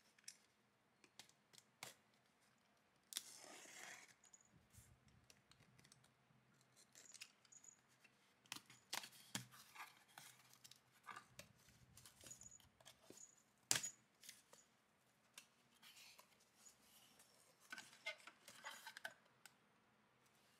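Soft handling sounds of a cardboard shipping box being opened: packing tape peeled and torn from the flaps, with scattered scrapes and taps of fingers and nails on cardboard. A longer tearing stretch comes about three seconds in, and a sharp tap about fourteen seconds in is the loudest sound.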